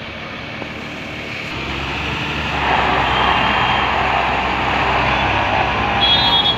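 Diesel engine of a Tata tipper truck running as the loaded-looking multi-axle truck rolls slowly over a dirt yard, with tyre noise on the dirt. The sound grows louder about two and a half seconds in as the truck comes closer.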